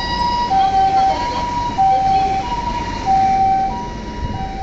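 Japanese ambulance's two-tone siren: a higher and a lower tone alternating evenly, each held for about two-thirds of a second. A steady low engine and traffic noise runs beneath.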